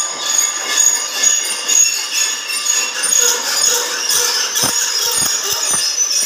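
Many hand files and hacksaws scraping and squealing on steel held in bench vises, a busy workshop din, with a few sharp knocks near the end.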